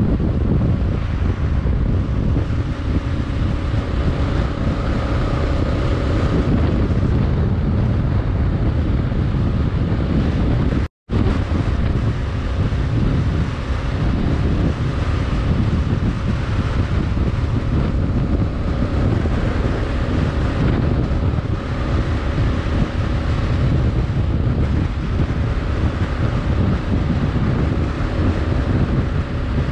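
Heavy wind buffeting on the microphone of a motorcycle at road speed, with the Kawasaki KLR 650's single-cylinder engine faintly beneath as a steady hum. The sound cuts out completely for an instant about eleven seconds in.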